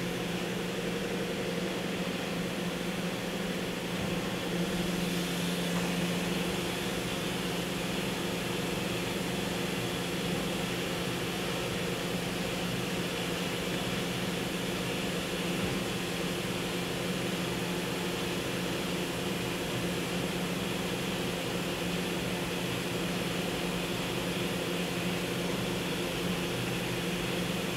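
Kia HC800 horizontal machining center running with a steady hum, a low tone with a few fainter tones above it, as its pallet rotary table indexes.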